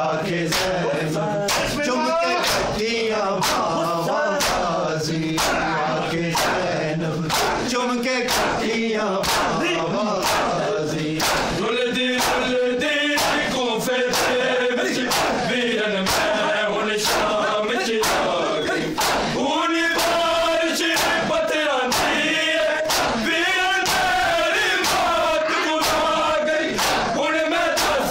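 A crowd of men chanting a nauha lament in unison while beating their chests with open hands in matam, the sharp slaps landing together in a steady rhythm of about two a second.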